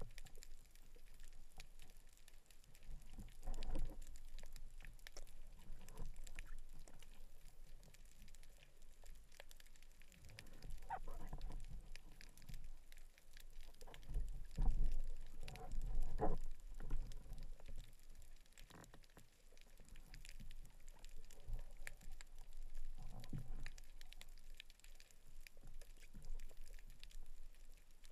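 Muffled underwater sound through an action camera's waterproof housing: water swishing and bubbling with irregular low rumbles and small knocks as the diver moves in the water. The rumbles swell loudest about halfway through.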